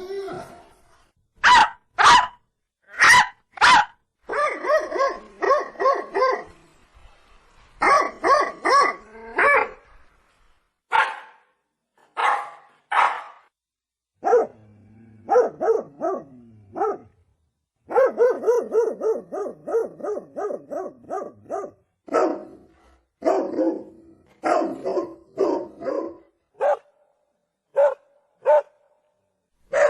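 Rajapalayam dog barking over and over: a few single loud barks, then quick runs of barks several a second, with short pauses between runs.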